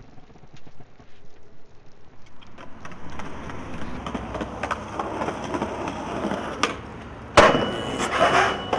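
Skateboard wheels rolling on concrete, building up a few seconds in. About seven seconds in comes a loud sharp clack of the board, followed by a few more knocks.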